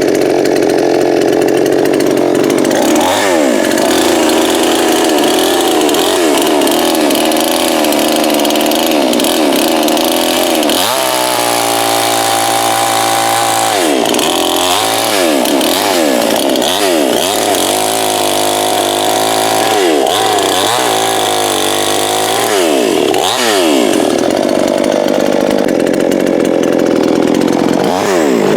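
Coocheer 58cc two-stroke chainsaw running at high revs. About eleven seconds in, the revs fall and hold lower for about three seconds, then climb again. Through the second half they dip and recover again and again, as the chain loads up and frees in the cut.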